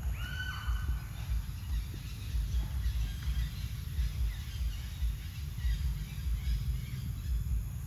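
Outdoor ambience with a low rumble throughout. There is one short clear call just after the start, and faint scattered bird chirps.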